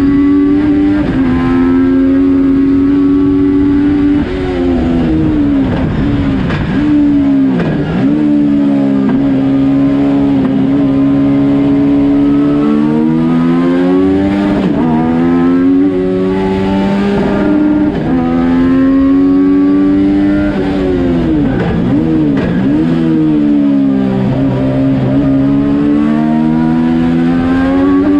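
Yamaha FZ-09 847 cc inline-three motorcycle engine powering a race car on track, revving hard. Its pitch drops sharply and climbs again several times as the driver lifts, brakes and downshifts into corners, then accelerates back up through the revs.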